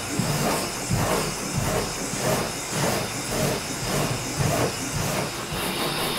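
Hand sanding block with a vacuum hose attached, rubbed back and forth over the epoxy-coated fiberglass of a kayak's cockpit riser: a rhythmic rasp of about three strokes a second. Under it runs the steady hiss of the dust-extraction vacuum drawing air through the block.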